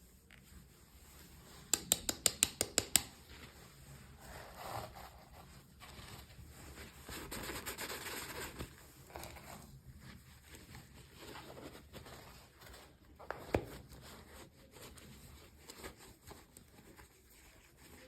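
Small packaging being handled and opened by hand: a quick run of about nine sharp clicks, then rustling and scraping, and one sharp click later on.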